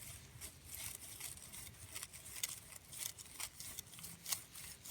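A hand tool digging a plug in forest soil and leaf litter, giving faint, irregular scrapes and crackles.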